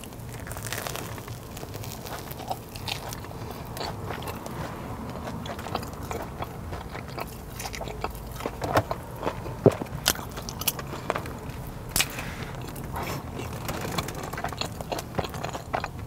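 Biting and chewing a Korean corn dog: crunching through its crispy batter, with irregular mouth clicks and crackles and a few louder crunches in the second half.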